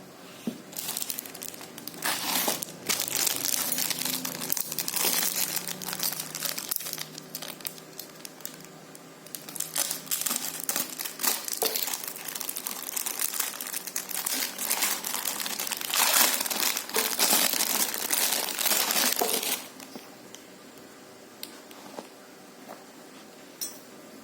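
Packaging crinkling and crackling as it is handled and unwrapped, in irregular bursts for most of the stretch, then stopping, with only a few light clicks after.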